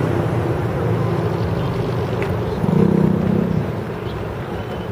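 Jet engines of an Airbus A330-300 running on its landing rollout, heard at a distance as a steady rumble. It swells louder for about a second near the middle.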